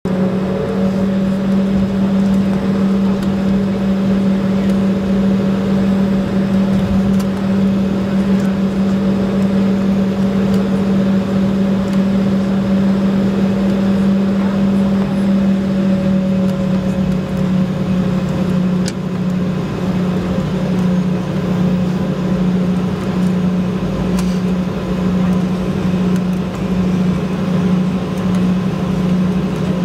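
Inside the cabin of an Embraer E-190 taxiing, with its twin GE CF34-10E turbofans at low taxi power: a steady low drone with a fainter higher tone above it and a wash of cabin air noise.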